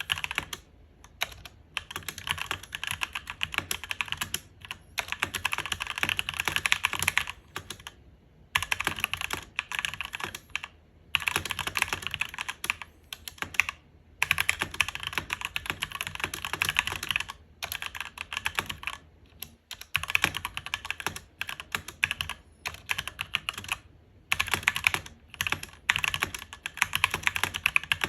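Fast typing on a SteelSeries Apex 7 TKL mechanical keyboard with red linear switches and ABS keycaps: rapid keystroke clatter in runs, broken every few seconds by short pauses.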